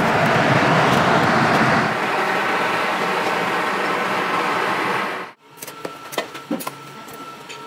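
Loud steady rushing noise from the foundry's cupola melting furnace, changing in tone about two seconds in and cutting off suddenly a little after five seconds. Then a steel shovel scraping and scooping through moulding sand, with scattered light clicks.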